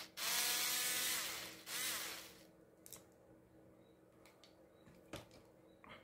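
Small cordless electric screwdriver running in two bursts, about a second and a half and then half a second, driving out a screw from a drill's motor brush housing. A few light clicks follow as the parts are handled.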